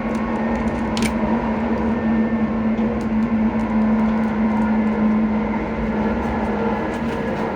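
ScotRail Class 334 electric train's traction motors humming steadily at speed over the rumble of the wheels on the track, with a single sharp click about a second in.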